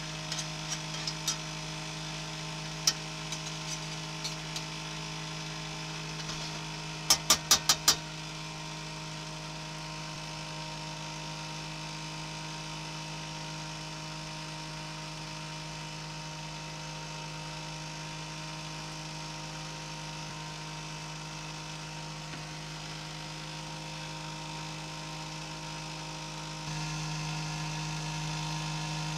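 A steady buzzing hum with several even tones runs throughout and steps up a little near the end. Over it, a metal spatula clicks and scrapes against a cast iron skillet a few times in the first seconds, then knocks five quick times about seven seconds in.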